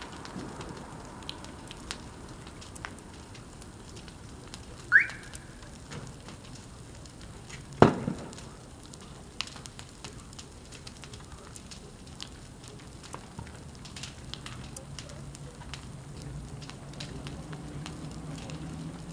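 Burning Porsche Cayenne: a faint, steady fire crackle with many scattered sharp pops. There is a short rising chirp about five seconds in and a louder single pop about eight seconds in. A low steady hum comes in over the last few seconds.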